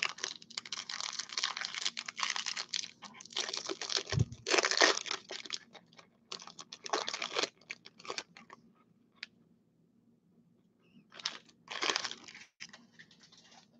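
Foil wrapper of a Topps Chrome jumbo trading-card pack being torn open and crinkled by hand, in a run of rustling bursts with a soft thump about four seconds in. The crinkling pauses and then comes back briefly near the end.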